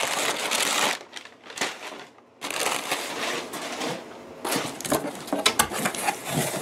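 Crumpled brown kraft packing paper rustling and crinkling as hands dig through it in a cardboard box. Near the end come a few sharp knocks and scrapes as cardboard boxes are handled.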